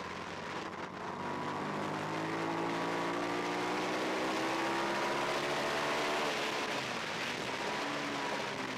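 Twin-cylinder race motorcycle engine heard from the bike's onboard camera, accelerating hard down a straight: its pitch climbs steadily for about five seconds, then drops about six seconds in. A steady rush of wind noise runs underneath.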